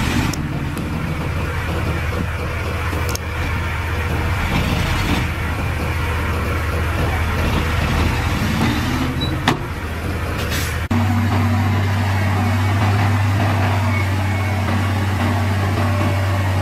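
Heavy machine engines running steadily, with one sharp knock about nine and a half seconds in; the sound changes abruptly a little before eleven seconds to another steady engine running.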